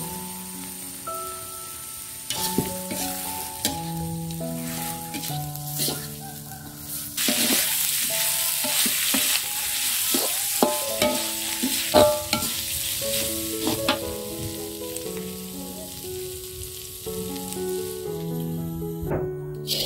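Rice snails frying in chili sambal in a hot wok, sizzling as a metal spatula stirs and scrapes them, with scattered sharp clinks of the spatula against the pan. The sizzle is loudest in the middle stretch. Background music with a gentle melody plays throughout.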